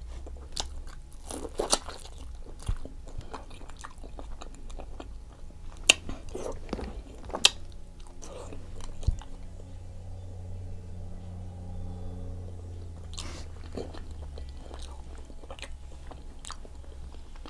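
Close-up chewing and biting of boiled octopus: wet mouth clicks and smacks, a few sharper ones scattered through, over a low steady hum.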